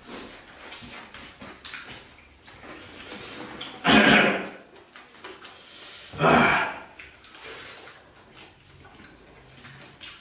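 People eating by hand at a table: quiet chewing, mouth sounds and fingers working food on plates. Two loud, short hissing sounds come about two seconds apart, near the middle.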